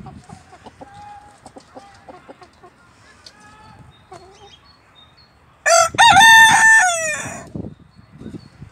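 Barnevelder rooster crowing once about two-thirds of the way in: a loud crow of about two seconds, a short first note and then a long held note that falls away at the end. Before it, hens cluck softly with short calls.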